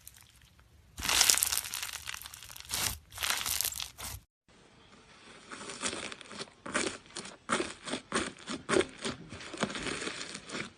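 Slime being squeezed and pressed by hand, making crinkly crackling sounds; after a break about four seconds in, it turns to a quick run of short sharp clicks and pops.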